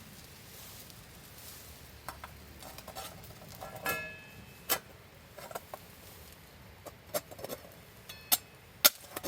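Scattered light clinks and taps of cooking utensils and tableware at an outdoor campfire meal. About four seconds in, one strike rings briefly like metal or crockery. The louder taps come near the end.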